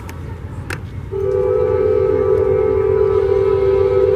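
Approaching Amtrak passenger locomotive's air horn sounding a long blast. It starts about a second in and holds a steady chord of several tones.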